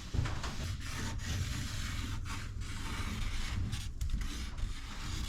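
Steady rubbing and scraping of a plastic sheet being handled and slid on the work surface, with a few brief breaks.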